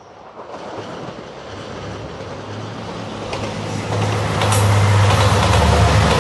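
A JR Shikoku 2700 series diesel limited express train approaching and passing close. The diesel engine hum and wheel-on-rail rumble grow louder over the first four seconds and then hold loud, with a few sharp clicks of wheels over rail joints.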